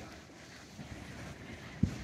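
Wind rumbling on the microphone, with one sharp low thump near the end.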